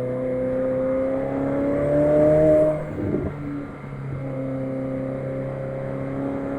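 McLaren 765LT's twin-turbo V8 pulling under acceleration, its pitch rising until an upshift a little under three seconds in, then climbing again more gently in the next gear.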